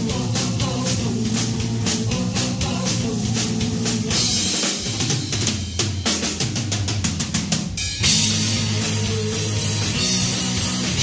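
Live rock power trio playing an instrumental passage on electric guitar, bass guitar and drum kit. About halfway through the low end thins out under cymbal wash while the drummer plays a quickening fill, then the full band comes back in together about three-quarters of the way in.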